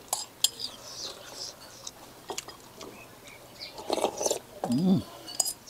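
Metal spoon clinking and scraping against a ceramic noodle bowl as the last bits of soup are scooped up, a few separate clicks. About four seconds in come mouth sounds of eating from the spoon, then a short hum of the voice.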